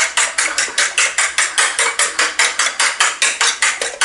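Eggs being beaten by hand in a porcelain bowl, the utensil clicking against the bowl in a fast, steady rhythm of about seven or eight strokes a second.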